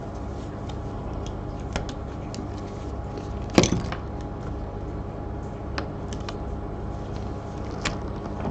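Small clicks and light knocks of things being handled on a workbench, with one louder knock about three and a half seconds in, over a steady low hum.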